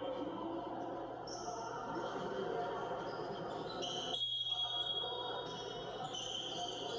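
Basketball game broadcast heard through a television speaker: arena sound with a ball bouncing on the court, over a steady low hum. High thin tones come in just past halfway.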